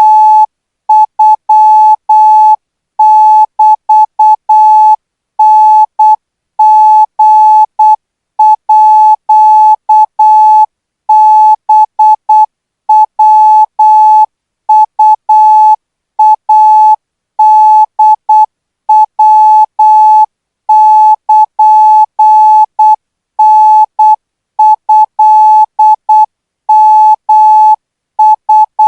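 Morse code practice signal for Thai radio training: a single mid-pitched beep tone keyed on and off in short dots and longer dashes at about 12 words per minute, with short gaps between letters and longer gaps between words.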